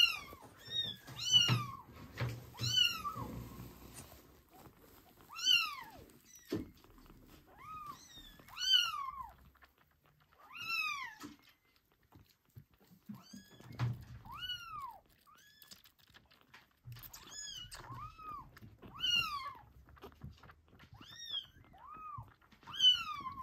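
A very young kitten mewing over and over during bottle feeding. The calls are high-pitched cries that rise and then fall, about one every second or two, with soft low thumps in between.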